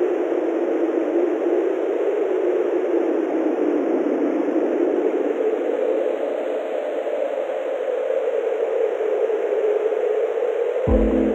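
A steady, even wash of static-like noise that does not change. A pulsing electronic bass comes in right at the end.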